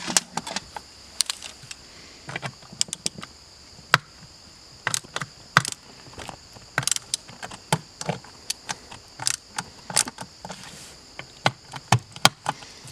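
Irregular sharp clicks and taps of a flathead screwdriver working screws out of an outboard motor's remote control throttle box.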